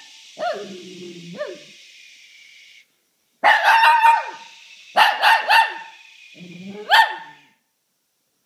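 Shih tzu barking in short clusters of two or three quick barks, with a couple of single barks falling in pitch near the start.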